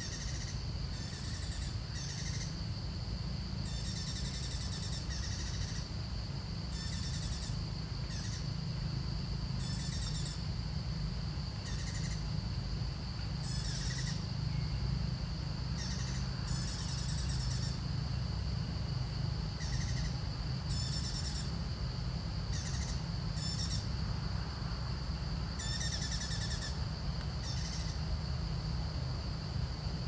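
Forest ambience: a steady high-pitched drone with short chirping calls repeating irregularly every second or two, over a low rumble.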